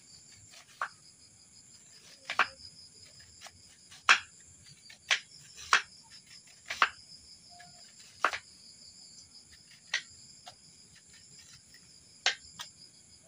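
A knife cutting thin slices of banana stem down onto a board: about a dozen sharp, irregular chops and taps. Crickets chirp steadily behind.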